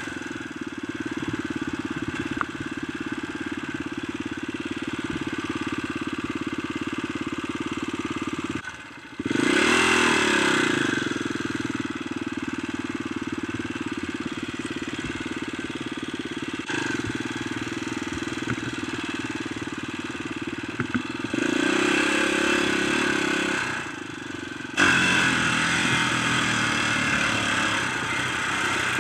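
Kawasaki dirt bike's engine running while riding, holding a fairly steady pitch. It drops off briefly about nine seconds in, then revs back up in a rising whine, and runs louder for stretches near the end.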